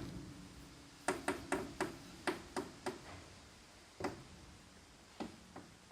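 Piano pedals cracking as a foot moves up and down on them: a string of sharp, irregular cracks, bunched together in the first half and more spaced out later.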